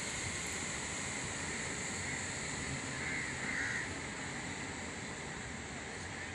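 Steady wash of surf on a rocky shore, with a bird calling twice about three seconds in.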